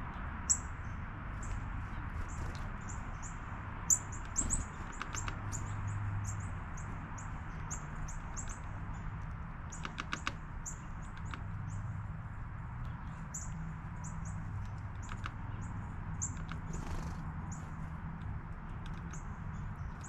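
Small songbirds at a feeder chirping over and over in short, high notes, with a few sharp clicks and taps, the loudest about four seconds in, over a low steady background hum.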